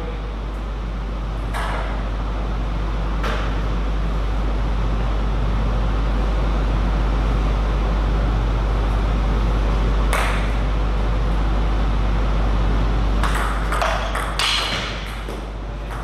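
Table tennis ball clicking sharply off the table or a bat a few times, with a quick run of several clicks near the end, over a steady low hum.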